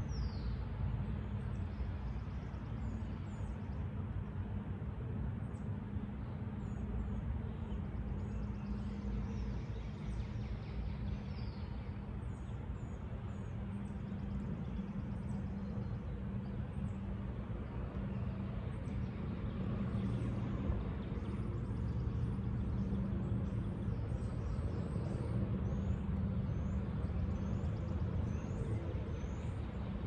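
Spring woodland ambience: a steady low mechanical hum, like distant traffic, under small birds chirping now and then.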